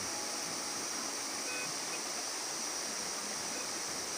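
Steady rush of water from a waterfall and stream, with a high hiss over it.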